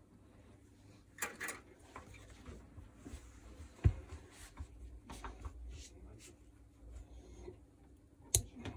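Hand tools and jigsaw gearbox parts being handled on a workbench: scattered clicks and knocks, with one sharp knock about four seconds in and another near the end, over a faint low hum.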